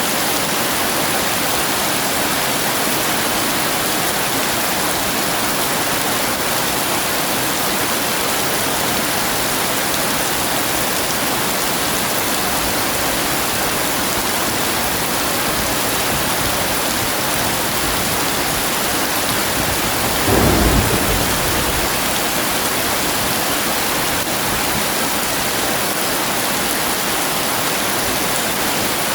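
Heavy rain falling steadily, with a single short clap of thunder about two-thirds of the way through.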